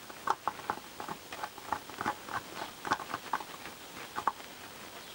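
Irregular small clicks and ticks, a few each second, from a 10 mm socket on a hand driver being turned on a Honda CBR1000F carburettor as a fitting is screwed in.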